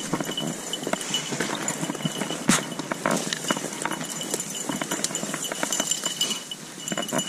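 Dry brush and twigs crackling and snapping under footsteps, an irregular run of small clicks with one sharper snap about two and a half seconds in. A faint high steady tone comes and goes.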